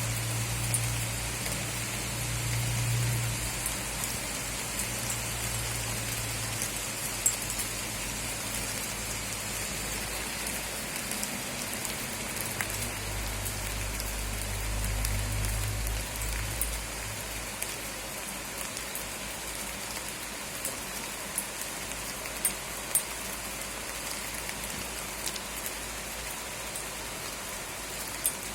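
Steady rain falling, with scattered sharp drip ticks throughout. A low rumble comes and goes during the first half, then fades away.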